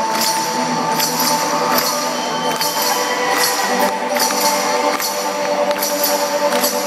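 Live band music heard from within the concert crowd: a held chord with a sharp, jingling beat struck about once every 0.8 seconds.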